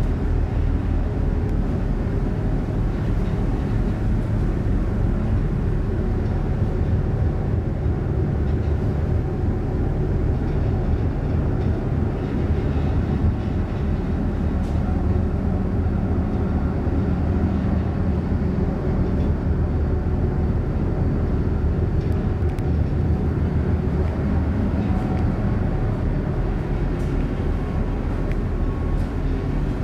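Car ferry Sunflower Kirishima's engines and shipboard machinery: a steady low drone with several held low tones, unchanging throughout.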